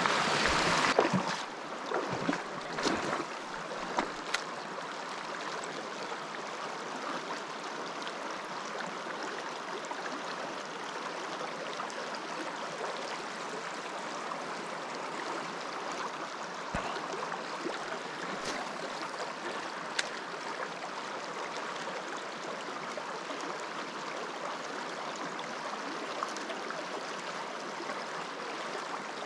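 Small mountain trout stream rushing steadily over rocks. A few knocks and rustles of handling in the first few seconds, then only the occasional faint click.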